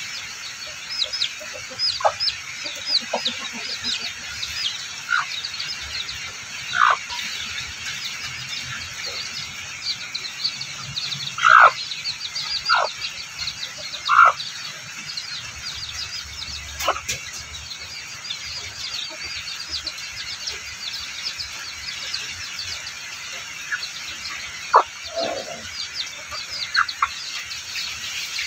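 A hen and her young chicks calling: the chicks peep steadily in many short, high, falling chirps, and a few louder single calls stand out, the loudest about a third of the way in.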